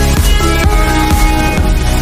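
Electronic background music with a steady beat of about two per second, heavy bass and sustained synth notes.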